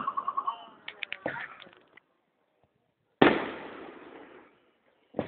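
Aerial fireworks bursting: a quick run of crackling pops in the first half-second and a few more about a second in, then a loud bang about three seconds in that trails off over a second, and another sharp bang near the end.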